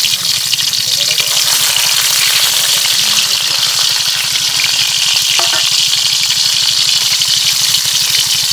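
Small fish sizzling steadily in hot oil in an iron kadai over a wood fire, turned now and then with a metal spatula.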